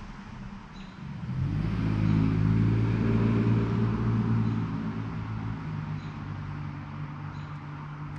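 A road vehicle's engine hum with tyre noise, swelling about a second in, loudest for a couple of seconds, then slowly fading as it passes.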